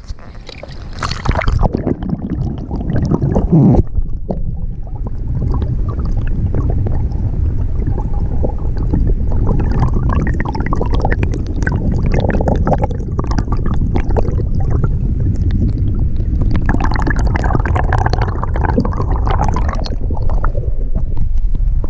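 Creek water gurgling and sloshing around a camera held under and at the water's surface: a dense, muffled churning full of small clicks and crackles, with a few splashes in the first four seconds.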